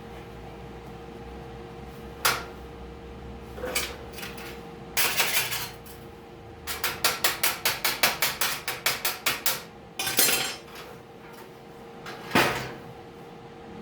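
A hammer striking welded sheet-steel, testing whether a 6013 stick-electrode weld holds. A few single blows and two scraping bursts, then a fast run of about five blows a second lasting some three seconds. A steady hum runs underneath.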